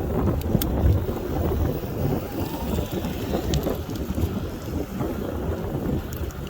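Wind buffeting the microphone of a rider on a moving electric scooter, a steady low rumble with no clear motor tone.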